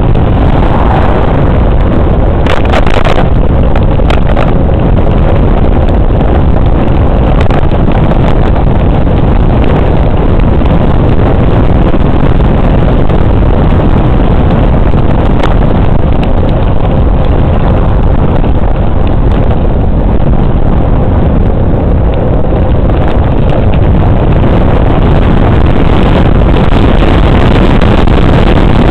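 Constant wind buffeting on the camera microphone of a moving bicycle, a heavy low rumble mixed with tyre noise and rattling on an asphalt path. A few sharp rattling clicks come about two and a half to three seconds in.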